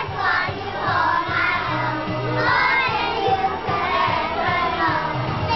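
A group of young children singing together over a recorded backing track with a steady beat and bass line.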